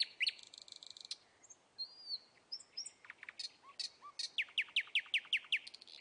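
Common nightingale singing a varied phrase. It opens with repeated down-slurred whistles and a short dry rattle, goes into scattered whistled notes and two lower notes, and ends with a fast run of down-slurred notes that speeds up.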